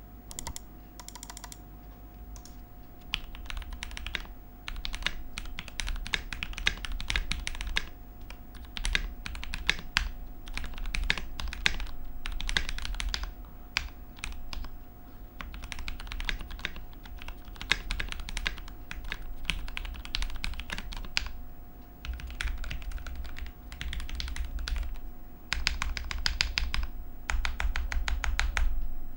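Typing test on a custom 980-layout mechanical keyboard with lubed Gateron Milky Black linear switches, Durock V2 stabilizers, a stacked frosted acrylic case and double-shot PBT keycaps. Fast runs of keystrokes come in bursts separated by short pauses.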